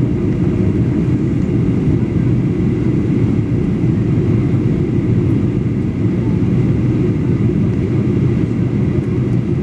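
Steady, even cabin noise of a Boeing 737-800 in flight, heard from inside the passenger cabin: a low rush of airflow and the drone of its CFM56 engines.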